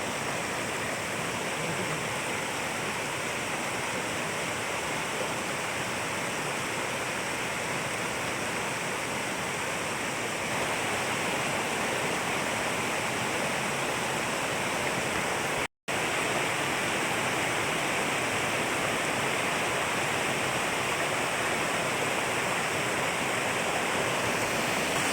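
Waterfall: a steady, even rush of falling water, with one brief break to silence about sixteen seconds in.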